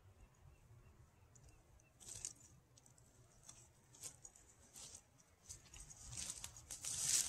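Faint scattered rustles and clicks, like something being handled, starting about two seconds in and growing louder and more frequent near the end.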